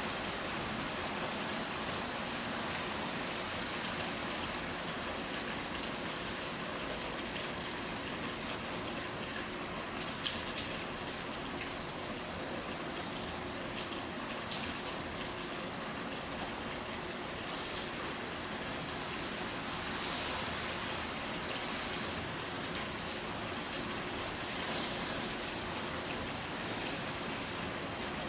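Steady rain falling and pattering. Twice, about a third of the way in, a small bird gives three short, very high chirps in quick succession.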